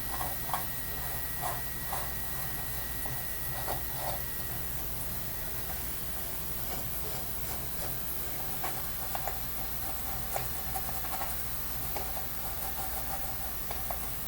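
Light rubbing and scattered small clicks as a rusty metal thermometer part is scrubbed clean with muriatic acid, over a steady low electrical hum and hiss.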